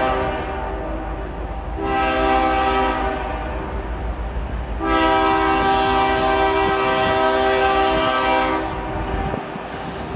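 Air horn of an approaching Canadian Pacific freight locomotive sounding for a grade crossing: the tail of one blast at the start, a short blast about two seconds in, then a long blast from about five seconds to near nine seconds, over the low rumble of the diesel engines. Wheels clatter on the rails near the end.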